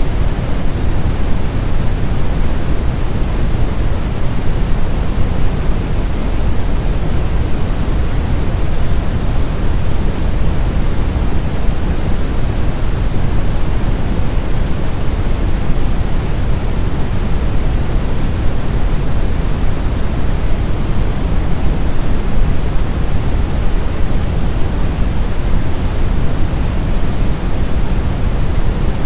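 Steady, deep brown noise: a smooth, unchanging rumbling hiss weighted heavily toward the bass.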